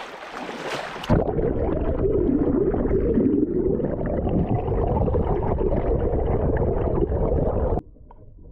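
Water splashing over the microphone, then about a second in a muffled, low, gurgling churn as the action camera goes under the river water. The churn drops suddenly to a faint underwater murmur near the end.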